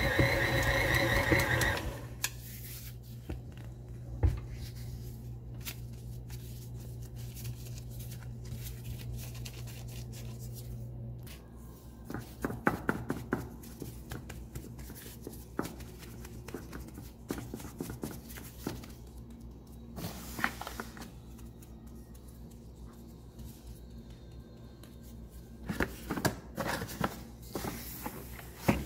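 KitchenAid stand mixer motor running steadily as it kneads dough, cutting off about two seconds in. After that, a faint low hum with scattered light rustling, tapping and scraping as plastic-gloved hands handle the dough on a plate, in clusters near the middle and near the end.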